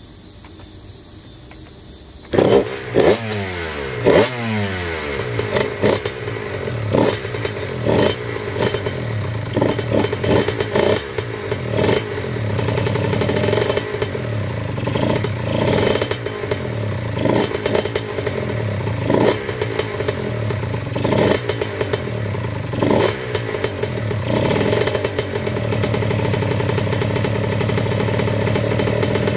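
A 2003 Honda CR85R's 85 cc single-cylinder two-stroke engine firing up about two seconds in, on its first start after a crank and piston rebuild. The revs fall away, then the throttle is blipped again and again before it settles into a steadier run near the end.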